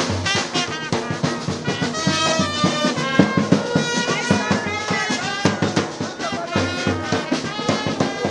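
Brass band music: horns playing over a steady drum beat.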